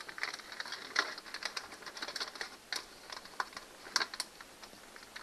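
Irregular light clicks and taps of small hard objects being handled, a few of them sharper, the loudest about a second in and about four seconds in.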